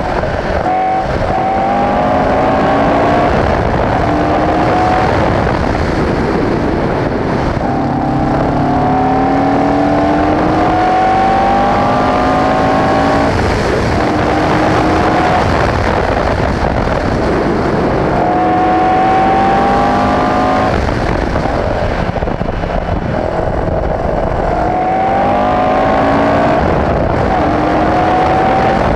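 Alfa Romeo 1490 boxer flat-four engine of a Le Gallen LLG82 Group C racing car, heard from onboard at speed. Its note rises in pitch several times as it pulls through the gears, with brief drops between, over heavy wind noise in the open cockpit.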